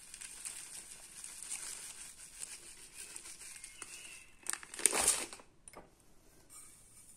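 Plastic packet of oat bran crinkling as the bran is poured into a glass cup, a faint crackly rustle with small clicks. About five seconds in comes a brief, much louder crinkling rustle.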